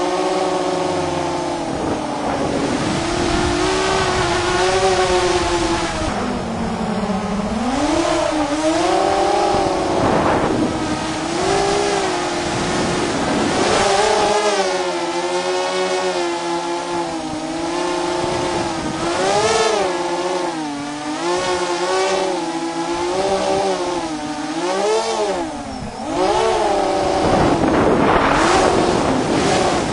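Racing drone's electric motors and propellers whining, the pitch swinging up and down continuously with throttle changes, heard close up from a camera strapped to the drone.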